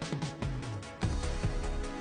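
Background music with a steady, heavy beat and bass line.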